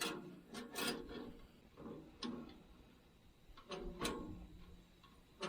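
A live-animal cage trap being handled and set in place: about eight light knocks, clicks and rattles at irregular moments.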